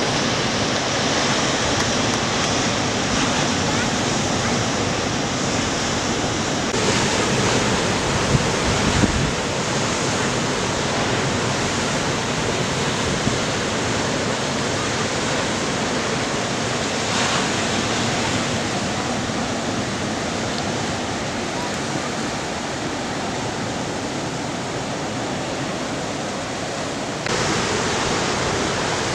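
Steady rushing hiss of surf breaking and washing along the shore, changing abruptly in level and texture at a few points.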